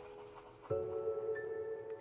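Soft background music with chime-like ringing notes. A chord comes in suddenly about two-thirds of a second in and rings on, with a higher note added partway through.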